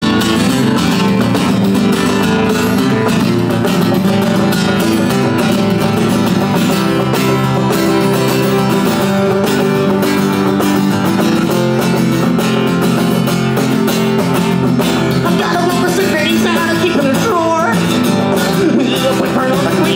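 Live acoustic guitar and banjo playing together, strummed and picked at a steady loud level. A singing voice seems to come in near the end.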